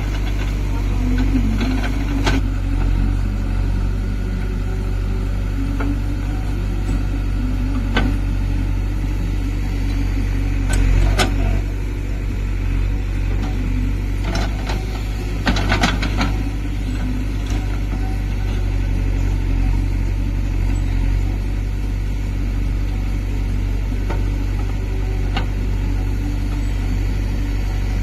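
Diesel engine of a JCB 3DX backhoe loader running steadily as it digs and loads soil, with a few sharp knocks along the way.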